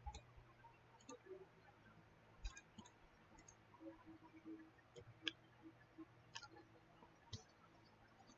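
Near silence: faint room tone with a handful of small, scattered clicks.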